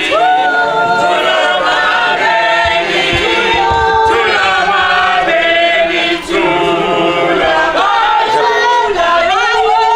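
A group of women singing a traditional song together in chorus, unaccompanied.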